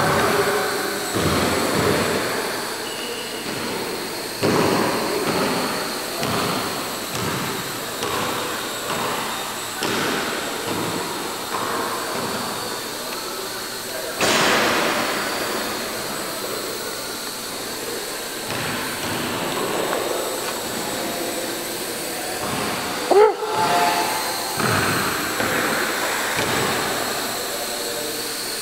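Small electric quadcopter's four propellers whirring in flight, the sound surging up and easing off repeatedly as the throttle changes. A sharp knock about three quarters of the way through.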